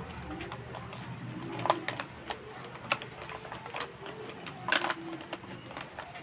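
Handling noise: scattered irregular clicks and taps with light rustling as a phone is moved close against a cloth headscarf, with a few louder knocks, the sharpest under two seconds in.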